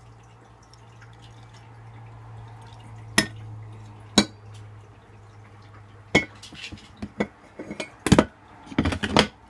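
Coffee pouring in a thin stream from a glass coffee-maker carafe into a ceramic mug, with sharp glass clinks about three and four seconds in. From about six seconds on come more clinks and knocks of the glass carafe being set back on the coffee maker, the loudest near the end.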